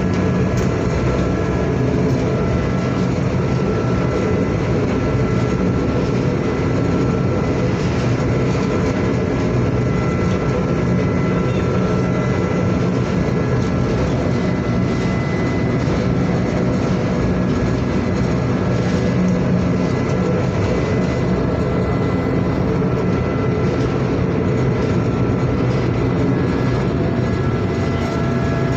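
Ship's engines and machinery running: a steady low drone with a few faint, high steady whining tones above it.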